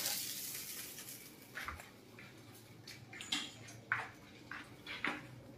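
Roast ducks being handled at a charcoal drum oven: a hiss that fades over about the first second, then scattered light taps and clicks as the ducks are hung on the rack.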